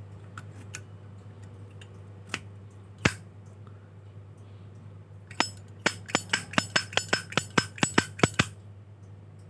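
Zippo lighter's metal lid clicking. There is a single click about three seconds in, then a quick run of about a dozen sharp metallic clicks, roughly four a second, near the end.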